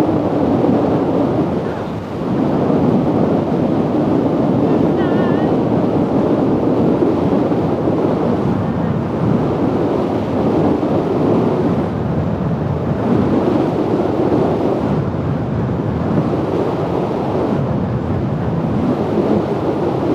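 Steady wind rush on a microphone tucked into a motorcycle helmet's cheek pad at highway speed. It dips briefly about two seconds in.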